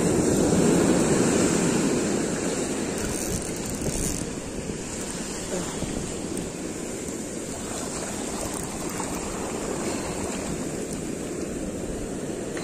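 Ocean surf washing up a sand beach, foaming over the wet sand, with wind on the microphone. The wash is loudest in the first couple of seconds, then settles to a steady hiss.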